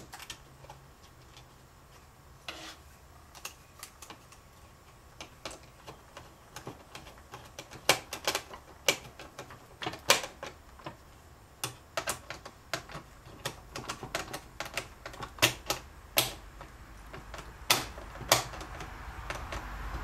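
Irregular sharp clicks and taps of small parts, screws and hand tools being handled while gauges are fitted and screwed into a 1973–87 Chevy truck instrument cluster. Sparse at first, they come thicker and louder from about eight seconds in.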